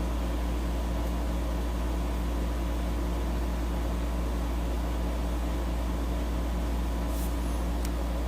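Steady low background hum of a room machine, such as a fan or air conditioner, with a couple of faint light clicks near the end.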